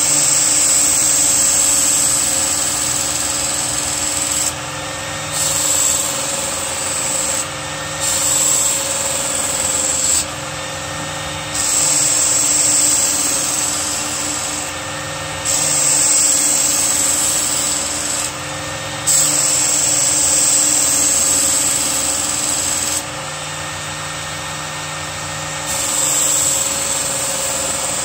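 Work Sharp Ken Onion Edition belt sharpener running steadily with its motor humming while the steel blade of an ESEE-5 knife is drawn across the abrasive belt. The grinding hiss rises and falls with each pass, every two to four seconds, as the edge and tip are reground.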